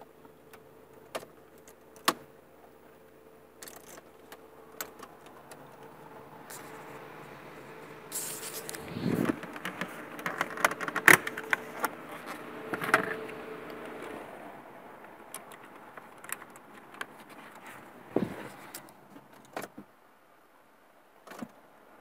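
Car keys jangling and plastic clicks and rattles as the ignition key and the under-dash trim around an Audi A3's ignition switch and fuse panel are handled. The clatter is busiest in the middle, over a faint steady hum that stops about two-thirds of the way through.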